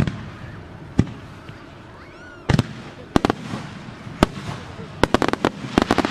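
Aerial firework shells bursting with sharp bangs, one or two a second at first, then a quick run of cracks near the end as several shells go off together.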